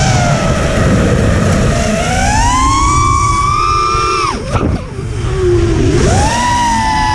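FPV quadcopter's motors whining in a stack of pitches that rise and fall with the throttle. The pitch sags and recovers in the first two seconds and holds high. About four and a half seconds in it dives steeply and the level dips as the throttle is cut, then it climbs back a second later, over a steady rush of wind.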